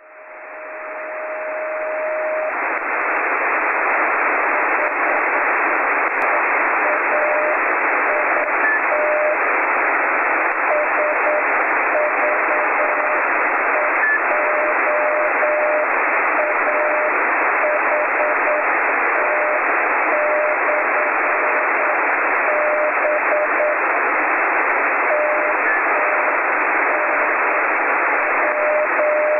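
Weak Morse code (CW) beacon on the 10-metre amateur band, received on a Yaesu FT-817: a single mid-pitched beep keyed slowly on and off in dots and dashes, about 9 words a minute, nearly buried in steady receiver static hiss. It opens with a long unbroken tone for about two seconds. The keying is the beacon sending its callsign, SV2AHT/B.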